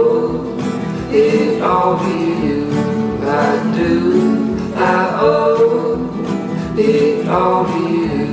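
Background music: an acoustic guitar-led song playing an instrumental passage between sung lines.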